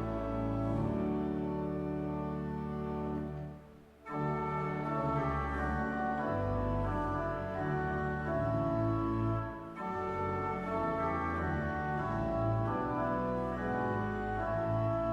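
Organ music: held chords that change every second or two, with a brief break about four seconds in.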